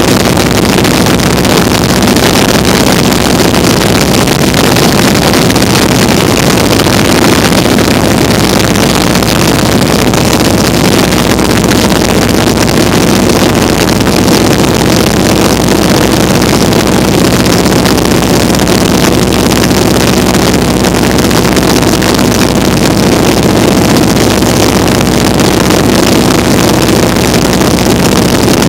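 Open-cockpit biplane's radial engine and propeller running steadily in flight, a constant loud drone heard from the cockpit under heavy wind rush on the microphone.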